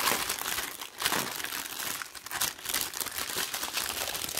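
Clear plastic bag of diamond-painting drill packets crinkling in irregular bursts as hands handle it.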